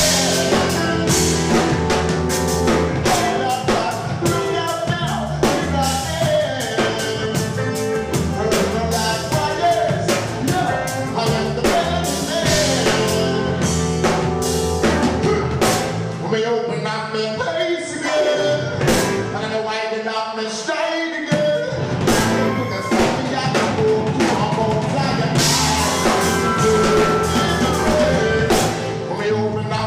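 A rock band playing live: drum kit, bass and guitar with singing. A little past the middle the low end drops out for a few seconds, then the full band comes back in.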